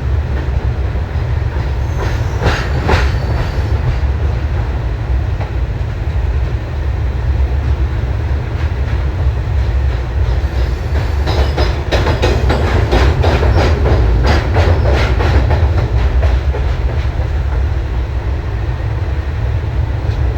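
Train running on the rails: a steady heavy low rumble, with bursts of clattering wheel clicks over the rail joints about two seconds in and again through the middle of the stretch.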